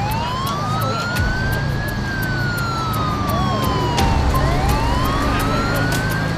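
Emergency-vehicle siren wailing in a slow rise and fall: it climbs for about two seconds, sinks for about two, and climbs again near the end, over a low rumble of vehicle engines.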